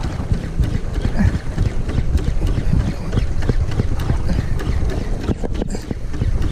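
Wind buffeting an action camera's microphone on a boat at sea, a steady low rumble broken by many quick irregular knocks and taps.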